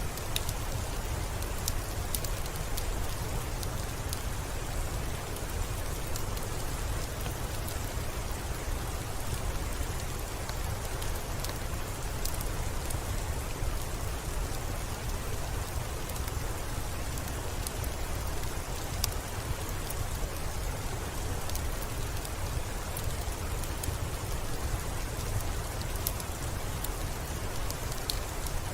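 Steady rain falling, with scattered small sharp crackles from a wood fire over a low, even rumble.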